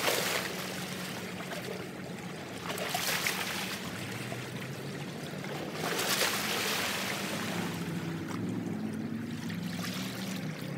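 Tidal water washing and surging against a rock bank, swelling about every three seconds, over a steady low hum.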